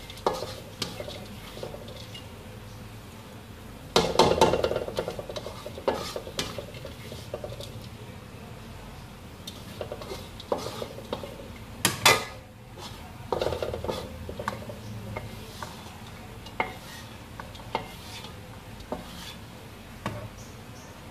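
Spatula scraping and knocking against a wok as the last bits of fried tempe are scooped out. There are repeated taps, a longer rattling scrape about four seconds in, a loud clank about twelve seconds in, and lighter taps toward the end.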